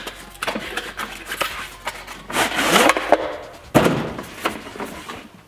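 A serpentine belt tool set being opened by hand: a string of clicks, knocks and scraping as its case and packaging are handled. There is a longer scrape about halfway through and a sharp knock a little later.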